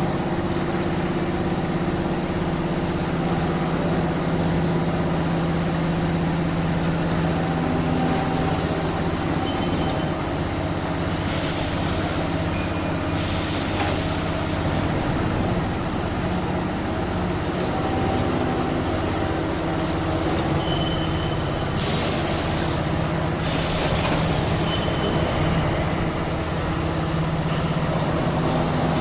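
CNC gantry V-groover running, cutting grooves in sheet metal pass by pass: a steady motor hum, broken twice by a louder hiss lasting a second or two.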